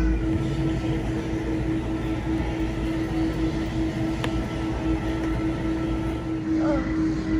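Steady mechanical hum and rushing noise in a pet store's aquarium section, such as the pumps and filters of the display tanks make: one constant pitched hum over an even rush, with a single faint click about four seconds in.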